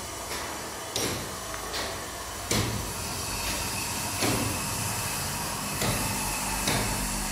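Footsteps climbing bare concrete stairs, a scuff or thud roughly every one to two seconds, over a steady hiss.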